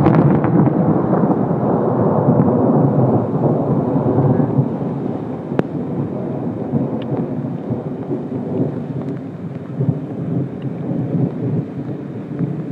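Thunder rumbling, loudest at the start and slowly fading over the first few seconds into a lower, lingering rumble. A single sharp click comes about five and a half seconds in.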